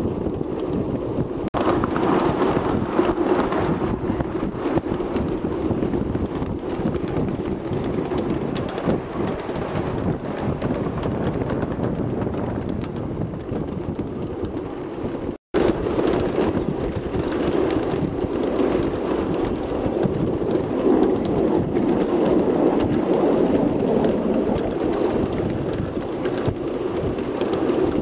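Steady rumble and rattle of a 1½-inch-scale ride-on train running along its track, heard from aboard, with wind buffeting the microphone. The sound cuts out for an instant about halfway through.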